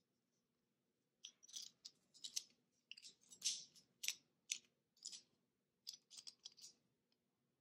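Snap-off utility knife with a plastic body: the blade slider clicking as the blade is pushed out, an irregular run of short, sharp clicks starting about a second in.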